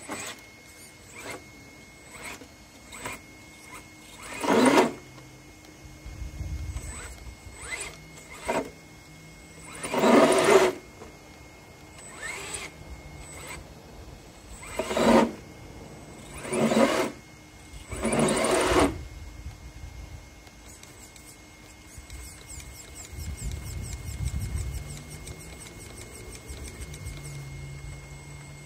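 RC scale crawler driving through mud: its electric motor and drivetrain whine in about five short, loud bursts of throttle, with a lower rumble between them as it crawls. A faint steady high tone runs underneath.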